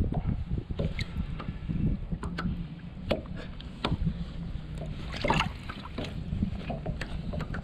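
A steady low rumble of wind and water around a small fishing boat, with scattered clicks and knocks from gear being handled aboard and a louder rustling knock about five seconds in.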